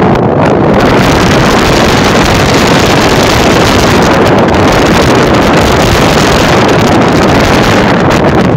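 Wind buffeting a phone's microphone on the open deck of a moving cruise ship: a loud, steady rushing noise.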